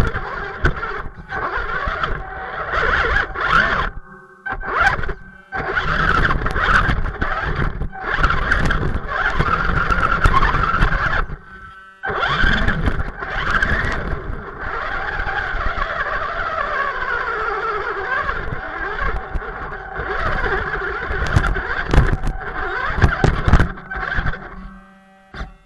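Electric motor and gear drivetrain of a BSD BT1001 RC crawler whining in bursts as the throttle is worked on and off, with brief pauses between them and the pitch rising and falling with speed.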